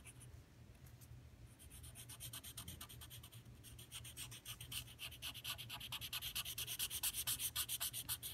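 Felt-tip marker rubbing back and forth on paper in quick, repeated strokes as a patch is coloured in solid. The strokes grow louder from about halfway through.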